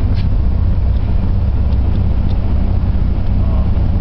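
Steady low rumble of a car in motion, road and engine noise heard from inside the cabin.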